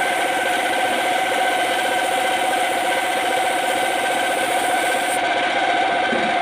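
Power sander running steadily against the steel dump body of a truck, a constant whine over a rough rubbing grind, taking the surface down ahead of priming.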